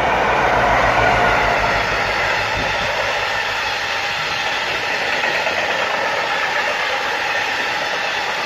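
DB Cargo Class 60 diesel locomotive passing close by, its engine rumble loudest in the first couple of seconds, then the steady rolling noise of its train of covered steel-coil wagons running over the rails.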